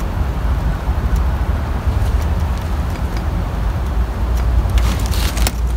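Steady low rumble with light clicks and a short scraping rustle about five seconds in, from hands working a timing belt onto the cam sprocket of a Toyota Camry 2.2L engine that is not running.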